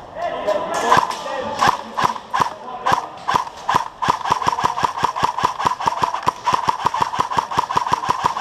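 Airsoft rifle firing: a few separate shots, then from about four seconds in a fast, even string of about seven shots a second.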